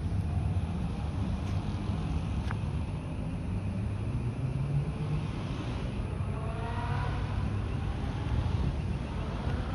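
Motorcycle engines with a steady low rumble, and an engine note rising as one revs about six to seven seconds in, with another climbing near the end.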